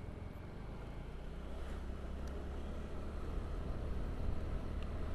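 Motorcycle engine running with a steady low hum while riding, slowly getting louder.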